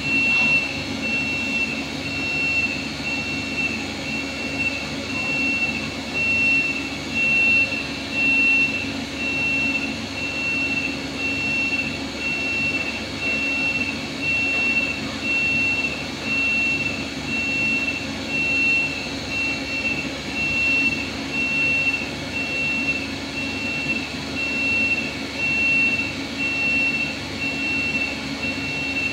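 Steady mechanical hum with a high-pitched tone pulsing on and off at an even rate, the level swelling and dipping in a regular rhythm.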